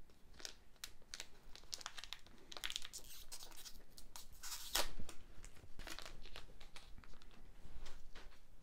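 A trading-card booster pack wrapper being torn open and crinkled by hand: a run of light crackles, with louder tearing about three seconds in and again near five seconds.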